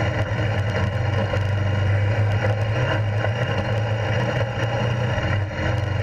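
Honda Africa Twin CRF1000L motorcycle's parallel-twin engine running at a steady pace, a continuous low hum.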